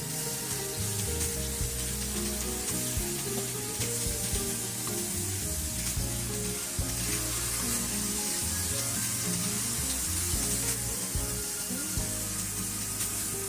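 Food sizzling steadily in a hot pan, over instrumental background music.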